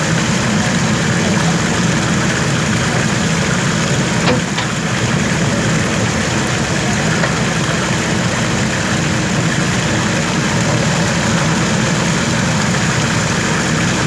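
JCB backhoe loader's diesel engine running steadily as the backhoe digs and swings its bucket, with one brief knock about four seconds in.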